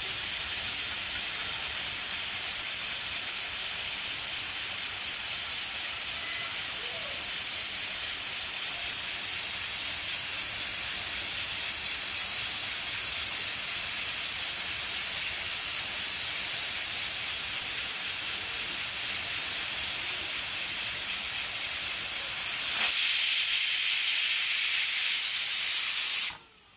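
Pressure cooker on a gas stove hissing steadily as steam escapes past its weight valve while the chicken curry cooks under pressure. The hiss turns louder near the end, building into the cooker's whistle, then cuts off suddenly.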